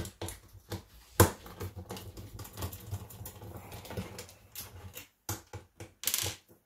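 Screwdriver backing the case screws out of an Apple II floppy drive's metal housing: a run of small clicks and ticks, with one sharp click about a second in and a short rattle near the end.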